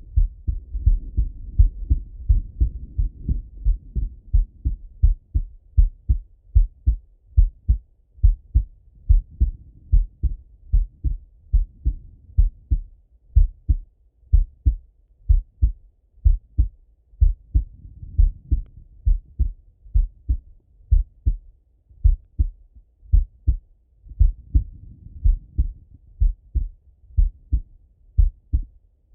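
A resting man's heartbeat heard through a Littmann stethoscope: slow, even lub-dub pairs, about one beat a second, deep and muffled. A soft hiss swells under the beats every seven seconds or so.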